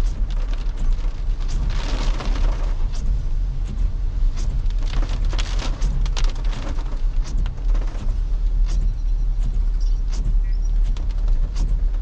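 Toyota Innova Crysta driving, heard from inside the cabin: a steady low rumble of engine and tyres on the road, with swells of hiss and scattered ticks and taps.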